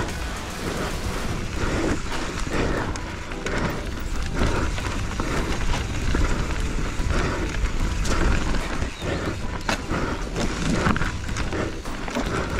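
Mountain bike ridden fast down a rough trail: a steady low rumble of wind on the microphone with frequent irregular rattles and knocks from the bike over the ground.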